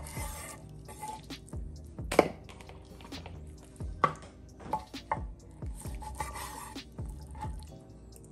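Chef's knife knocking through beef short ribs onto a wooden cutting board: several sharp knocks, the loudest about two seconds in, over background music.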